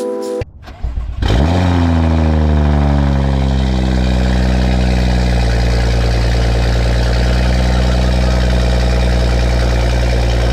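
BMW F30 335i's turbocharged straight-six cranking briefly and starting about a second in, with the rear muffler removed. It flares up, then settles over a few seconds into a loud, steady idle.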